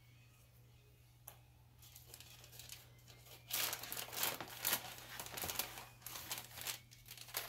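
Cardboard mailer being torn and pulled open by hand: quiet at first with one small click, then uneven rustling and tearing of card and paper from about halfway through.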